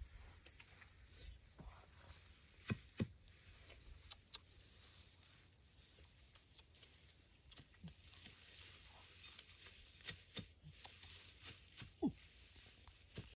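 Faint rustling and crackling of dry grass and leaves, with scattered sharp snaps and clicks. The loudest are two snaps close together about three seconds in.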